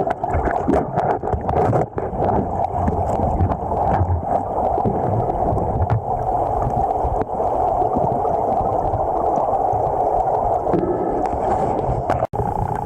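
Swift river current rushing and gurgling past a submerged camera, a muffled steady rush with scattered small knocks and clicks.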